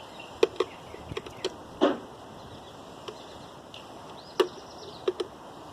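Scattered light clicks and knocks of hand tools and metal parts being handled while working on a garbage disposal's wiring, about nine in all, the loudest about two seconds in and just past four seconds in.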